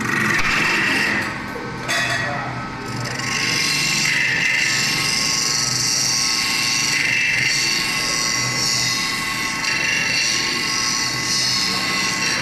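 Stainless steel neck forming, cutting and trimming machine running, the spinning steel vessel body worked by its forming roller and cutting tools, giving a steady high-pitched metallic whine. It drops briefly about two seconds in, then runs on.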